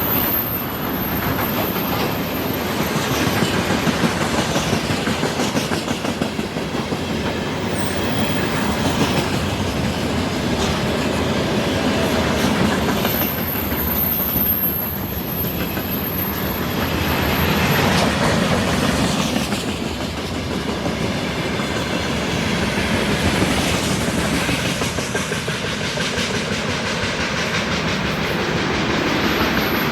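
Train cars rolling steadily past, their wheels clattering over the rail joints.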